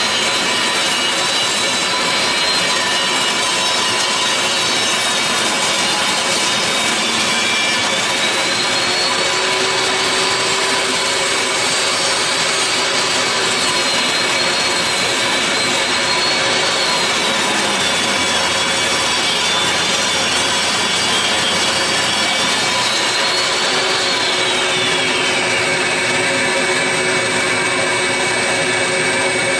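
Table saw ripping a long oak board. Its blade whine rises and falls in pitch as the cut loads it and drops about three-quarters of the way through. Under it runs the steady noise of a fan and a dust collector.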